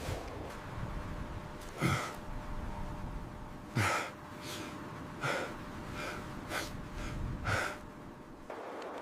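Heavy, sharp breaths or gasps, about six in a row, over a steady hiss of wind.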